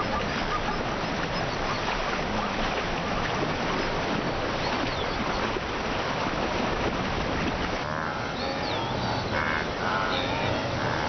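Churning, splashing river water as a packed herd of wildebeest and zebras crossing a river scrambles up the bank, with a few animal calls about eight seconds in.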